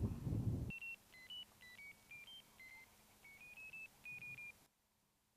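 A brief low rumble, then a run of about a dozen short electronic beeps that jump up and down in pitch, typical of a ferret locator receiver tracking a collared ferret underground.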